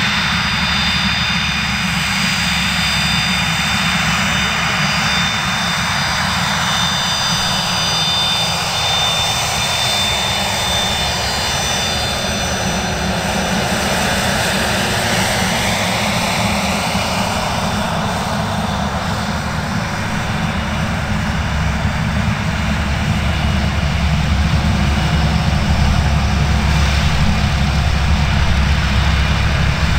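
Cessna Citation CJ3's twin Williams FJ44 turbofans running: a steady high whine over a wide rushing noise that sweeps down in pitch and back up around the middle, growing a little louder over the last third.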